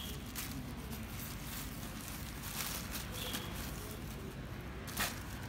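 Plastic bag rustling and crinkling in irregular bursts as hands squeeze and knead damp pig-feed bran into a ball of fishing bait, with one sharper crackle about five seconds in.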